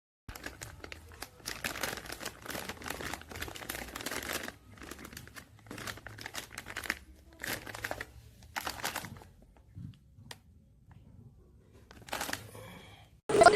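Plastic packaging crinkling and rustling in irregular bursts as it is handled, with scattered small clicks. It ends with a brief, louder burst of noise.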